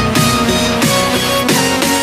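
Electronic dance music with a fast, steady beat.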